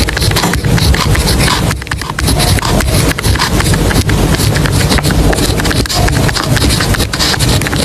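A dense, continuous run of quick clicks and scratching from hands at work at a study desk.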